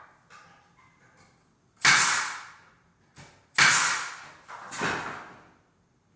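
Pneumatic nail gun firing three times, each shot a sharp crack with a short fading hiss, driving nails through door casing into the jamb. The third shot, near the end, is quieter.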